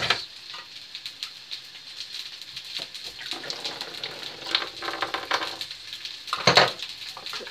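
Sausages sizzling in a frying pan, a fine crackle throughout. There is a stretch of handling noise from about three to five seconds in and a loud sharp clank about six and a half seconds in.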